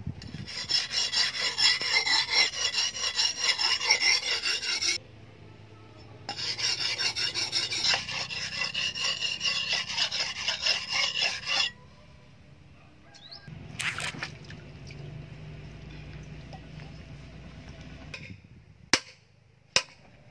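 Steel cleaver blade scraping back and forth on a wet sharpening stone in fast, even strokes, several a second, in two bouts with a short pause between. This is the blade being ground and sharpened. Near the end come two sharp knocks.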